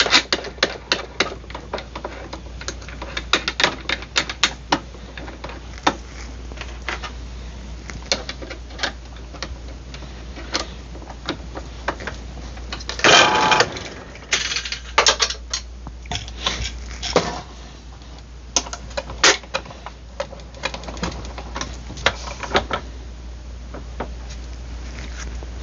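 Small metal tools and parts being handled on a workbench: irregular clicks, taps and rattles, with a louder clattering rattle about thirteen seconds in.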